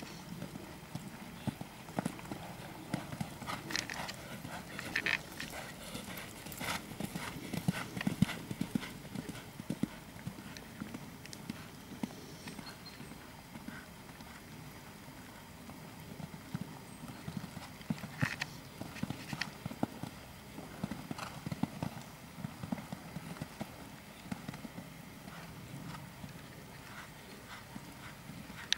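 Hoofbeats of a Holsteiner mare cantering on a sand arena: a continuous run of soft, dull thuds, with sharper clicks here and there.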